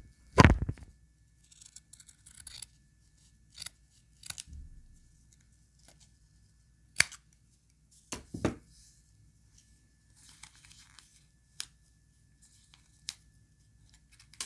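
A paper pattern and satin fabric being handled and pinned: short papery rustles, light clicks and taps, with a louder thump about half a second in.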